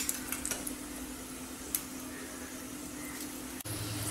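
Whole black peppercorns sizzling in hot oil in a kadai, a light hiss with a few small crackles, over a steady low hum that drops lower after a brief break about three and a half seconds in.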